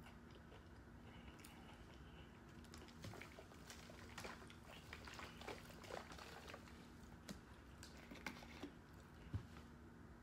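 Faint mouth and handling noises: quiet chewing with scattered soft clicks, then a bottle picked up and tipped to drink from near the end.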